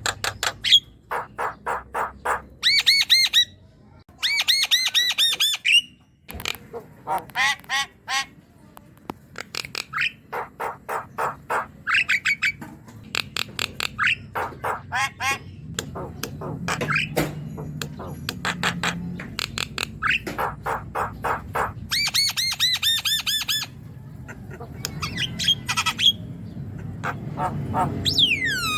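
Javan myna (jalak kebo) in full song: run after run of quickly repeated harsh, rasping chatter notes, a few per second, broken by short pauses, with a falling whistled note near the end.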